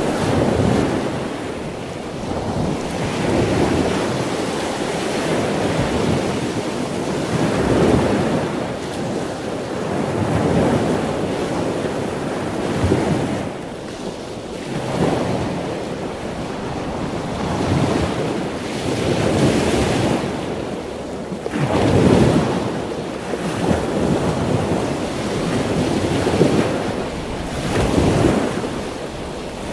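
Sea surf: waves washing in and breaking, swelling and ebbing every two to three seconds, with wind noise on the microphone.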